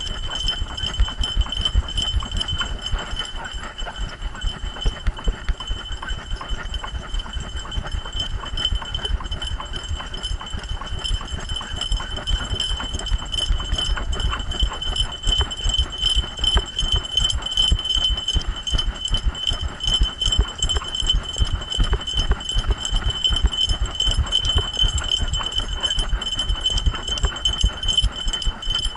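A running dog's gait jostling the camera strapped to its harness: a fast, continuous run of low thumps, with a steady high jingling throughout.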